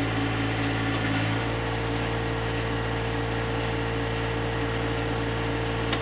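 John Deere compact tractor's diesel engine running steadily while the 260B backhoe's hydraulics are worked to recheck the new thumb's hose fittings for leaks. About a second in, a higher steady whine joins the engine sound.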